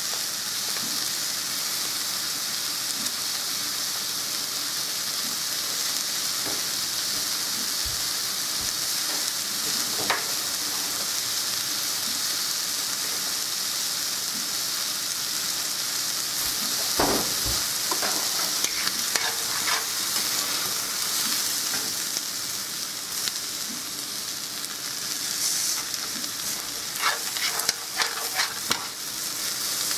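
Rice and chicken pieces sizzling in a frying pan as the rice toasts before the stock goes in, a steady frying hiss. A few knocks of a stirring utensil against the pan, more of them near the end.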